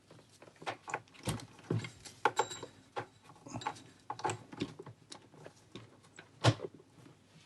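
Handling noise from a metal-and-plastic desk lamp: a string of irregular clicks, taps and knocks as its parts are moved and set down, with one louder knock near the end.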